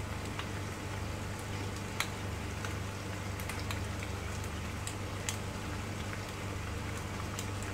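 Masala pasta in a frying pan on the stove sizzling softly: scattered small pops and crackles over a steady low hum.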